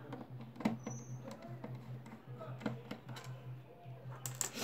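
Small sharp clicks and taps of a screwdriver working screws out of a router's plastic case and of hand tools being handled on the table, a few single clicks and then a quick cluster near the end, over a steady low hum.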